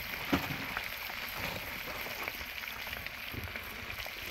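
Salted mackerel fillets frying in oil on a griddle pan: a steady sizzle with scattered small pops and crackles. One sharper click comes about a third of a second in.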